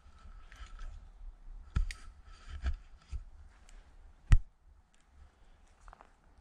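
A few sharp clicks and knocks, spaced irregularly, with the loudest about four seconds in, over a low rumble and faint scraping.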